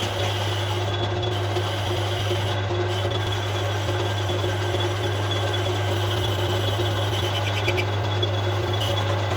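Steady low machine hum over a rushing noise, with a few light clicks about three quarters of the way through.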